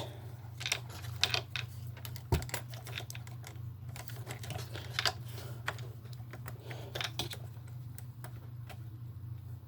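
Small plastic parts of a toy RC truck clicking and tapping as they are handled and fitted, in irregular light clicks with one sharper knock about two and a half seconds in, over a steady low hum.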